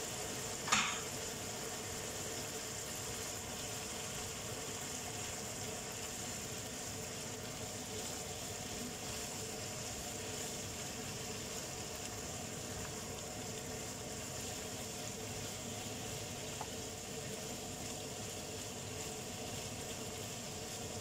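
A pan of chicken, potatoes and carrots sizzling steadily over a gas flame while it is stirred with a silicone spatula, with one sharp click about a second in.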